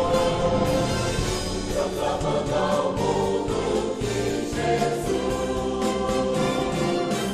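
Mixed church choir of men's and women's voices singing a Portuguese-language gospel song in harmony, on held notes.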